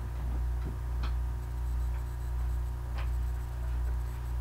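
Steady low electrical hum with two faint clicks about two seconds apart.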